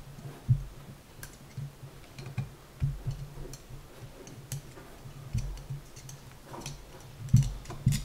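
Irregular small metal clicks and light knocks from a cylinder head and its valve parts being handled and worked with a small hand tool, with a few duller bumps against the table.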